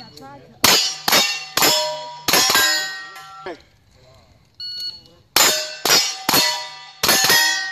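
Pistol-caliber carbine shots in two quick strings of about five, each shot answered by a steel target plate clanging and ringing on the hit. The second string starts about five seconds in.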